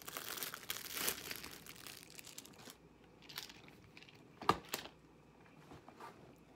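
Clear plastic wrapping being crinkled and torn off a pair of nunchucks for the first two and a half seconds or so. Then two sharp knocks about four and a half seconds in, the loudest sounds here.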